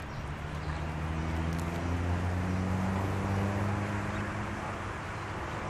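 Diesel engine of an approaching GE GEA-class diesel-electric locomotive, a low steady hum that grows louder over the first couple of seconds and then eases slightly.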